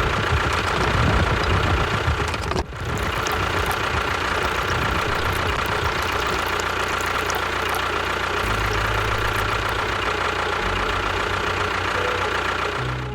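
A small motor of a home-built mini construction machine running steadily with a low chugging rhythm and a steady whine. It briefly drops out about two and a half seconds in, and the low hum gets louder for a couple of seconds near the end.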